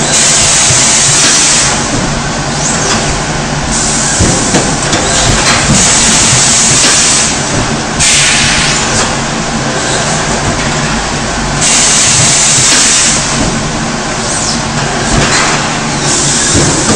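Compressed air hissing out in repeated bursts of one to three seconds as the 25 kW high-frequency welding machine's pneumatic cylinders drive the press head up and down, over a steady low hum.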